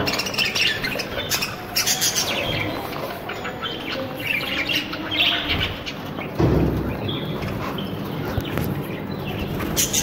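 Several budgerigars chattering with short chirps and squawks throughout, with one low thump about six and a half seconds in.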